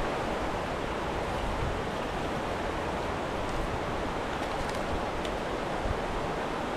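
Steady rush of water pouring over a small waterfall, an even noise that holds level throughout.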